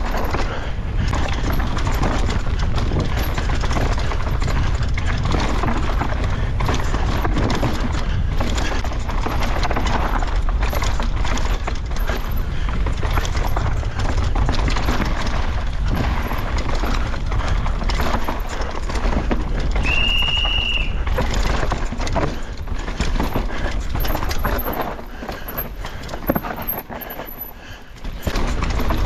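Downhill mountain bike ridden fast over a rough track: continuous knocking and rattling of tyres, frame and chain over rocks and roots, with rushing air noise. A brief high tone sounds about two-thirds of the way in, and the rattling eases for a few seconds near the end.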